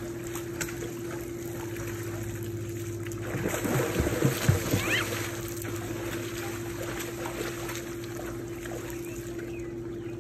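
Water splashing as a child in a life jacket jumps into a swimming pool, loudest about four seconds in, with a few sharp slaps. A steady low hum runs underneath.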